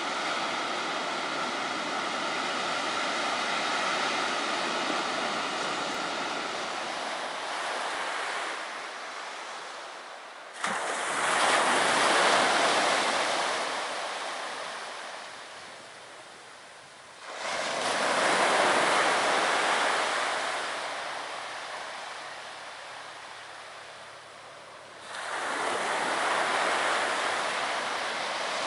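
Ocean surf breaking on a sandy beach. A steady rush of waves gives way to three breakers about seven seconds apart, each coming in suddenly and washing out slowly.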